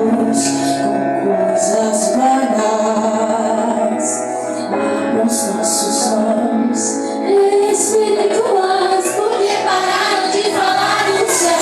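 Christian worship song: a woman singing over instrumental accompaniment.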